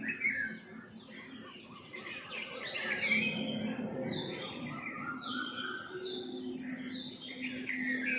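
Several birds chirping and calling at once, a busy mix of short overlapping chirps, with one high falling whistle repeated about once a second in the second half.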